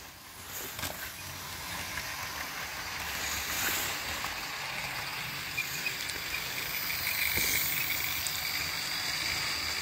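Hornby OO-gauge model trains running on the layout track, an electric motor whirring with wheels rattling over the rails. It grows louder as the Mallard locomotive and its coaches pass close by, then runs on steadily.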